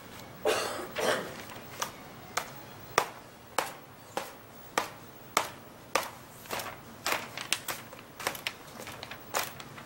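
A steady beat of sharp taps, a little under two a second. Smaller, quicker taps fall in between them in the second half.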